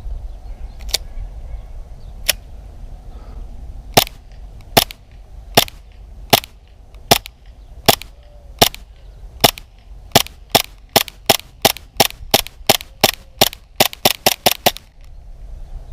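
Tokyo Marui Glock 18C gas-blowback airsoft pistol firing single shots, about 25 in all, slowly at first and then quickening to about three a second before stopping near the end as the 25-round magazine runs empty. A low wind rumble runs underneath.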